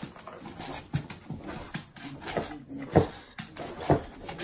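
A bulldog making a run of short, irregular sounds, the two loudest about three and four seconds in.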